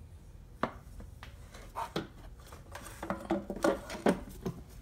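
Aluminium valve cover of a GM 2.4 Ecotec engine being lowered and settled onto the cylinder head: a few sharp metal knocks, then a quick run of small knocks and clatter during the last two seconds.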